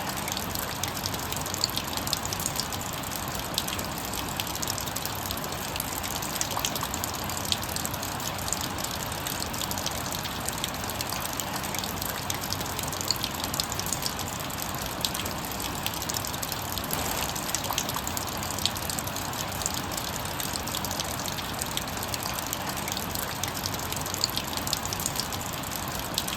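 Steady rain with water dripping and running off a garage roof: a constant wash of noise scattered with many small irregular drip ticks.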